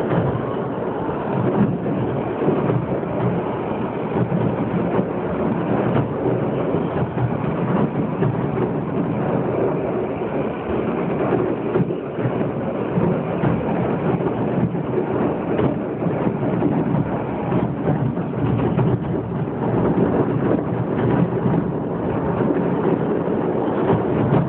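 A dense barrage of fireworks going off: a continuous rumble of overlapping bangs with many small cracks throughout.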